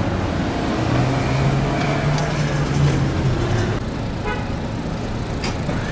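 City street traffic noise, with a vehicle's steady low engine drone that sets in about a second in and dies away a little before four seconds.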